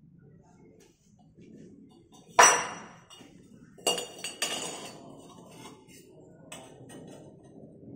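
Stainless steel tube pieces clanking and clinking against each other and the metal bench as a pipe tee is fitted up. One loud ringing clank about two and a half seconds in, two more about four seconds in, then lighter taps and scrapes.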